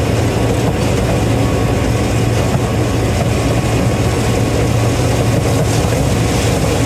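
Gleaner M3 combine running steadily while harvesting corn: a constant engine drone with a low, even hum and the dense noise of the threshing machinery.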